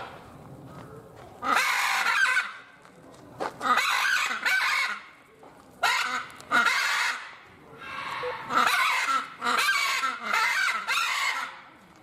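Macaws squawking: loud, harsh calls in four bouts of one to three seconds each, with short quieter gaps between them.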